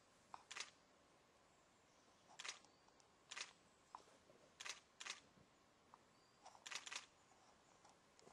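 Faint, scattered crunches of feet or paws shifting on a gravel road, about seven short scrapes at uneven intervals, with near silence in between.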